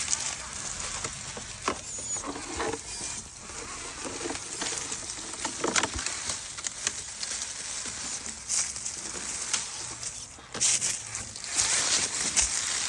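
Hands working on a plastic RC crawler body and its light wiring: scratching, rustling and scattered small clicks and taps, louder rustling in the last couple of seconds.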